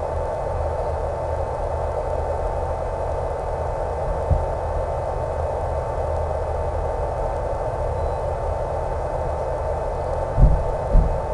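Steady drone of the Super Cub's electric motor and propeller in flight, mixed with wind rush. A low thump about four seconds in and two more near the end sound like wind buffeting the microphone.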